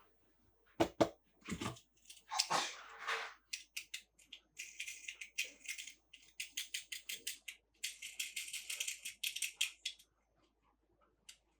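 Handling of toys and packaging: a couple of sharp knocks, a brief rustle, then long runs of rapid, high-pitched plastic clicking or rattling.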